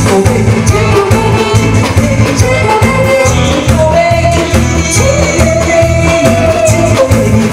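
Male vocalist singing a Korean trot song into a microphone over a loud backing track with a steady beat.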